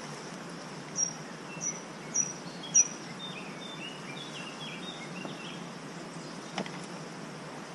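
A small bird calling: four sharp, high chirps in the first three seconds, then a run of softer, lower notes that step up and down, over a steady background hiss. A single faint click comes near the end.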